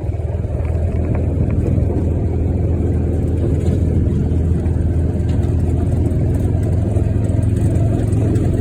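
Side-by-side utility vehicle's engine running steadily while driving, heard from on board as a deep, even drone.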